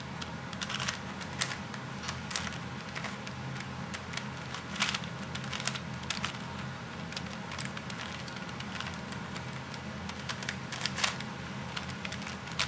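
Plastic clicking and clacking of a homemade twisty puzzle built from three Rubik's 3x3 cubes as its layers are turned quickly to scramble it, in irregular quick clicks over a steady low hum.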